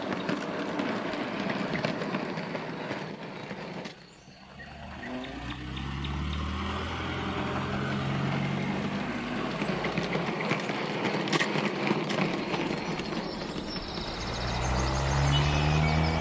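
An H0 model locomotive, a Piko E69, runs past on the track with a steady motor hum and wheel rattle, and the sound cuts off suddenly about four seconds in. Then a car engine sound rises and falls in pitch, and rises again near the end.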